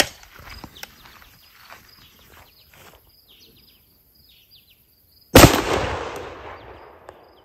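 A single 12-gauge shotgun shot about five seconds in, loud and sudden, its report rolling away over about two seconds. Before it, a few faint clicks and rustles of handling and faint high chirps.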